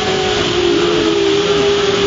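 Loud, steady rush of falling water from a waterfall, with a steady low droning tone running through it.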